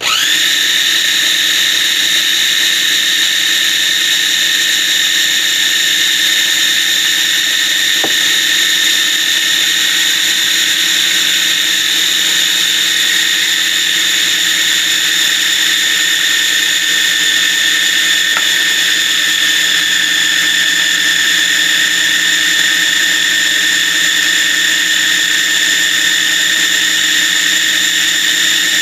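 Food processor motor spinning up to speed and then running steadily with a high whine, blending garlic and lemon juice as oil is poured in to emulsify it into toum.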